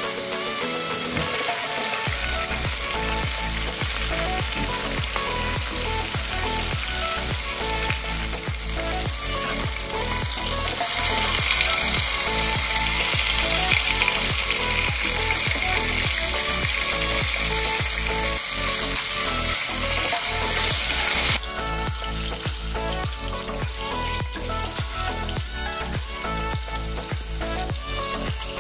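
A whole flour-coated fish sizzling as it fries in hot oil in a stainless steel pan. The sizzle is louder through the middle and drops suddenly about two thirds of the way through.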